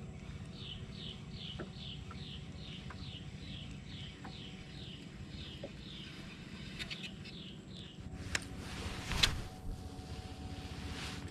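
A bird repeating a short, high, down-slurred call about two to three times a second for some seven seconds, over a steady low hum. A few sharp knocks come near the end.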